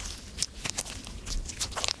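Glittery slime being stretched and pulled by hand, giving irregular sticky clicks and pops, with a quick run of them near the end.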